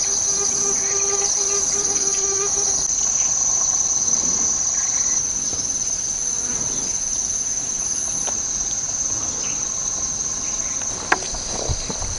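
A loud, steady chorus of chirring insects: one even, high-pitched buzz with no pauses. There is a single sharp click near the end.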